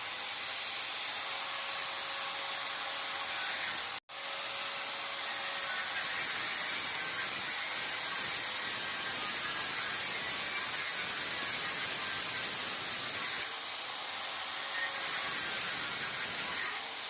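Angle grinder's abrasive cut-off disc grinding through an iron rod: a steady, harsh noise strongest in the high pitches, broken by a momentary cut-out about four seconds in.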